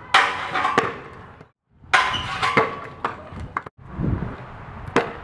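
Stunt scooter hitting hard surfaces during tricks: a sharp metallic clack that trails off over about a second, then another sharp hit and a few clicks, then a low rolling rumble with one more knock near the end.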